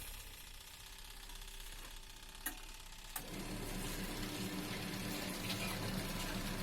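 Water running into a washing machine tub with a steady hiss; two clicks about two and a half and three seconds in, after which a low motor hum starts and keeps running.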